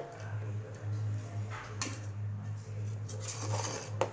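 Metal spoon stirring puffed-rice upma in a metal pot: a few soft rubbing, scraping strokes and a click of spoon on pot near the end, over a steady low hum.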